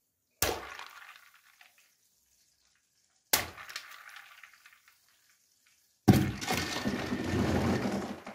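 Two soda-filled balloons burst by a wooden skewer in a toilet bowl, about three seconds apart, each sharp pop followed by splashing and fizzing that fades as the soda spills over Mentos candies. About six seconds in, a louder continuous sound begins.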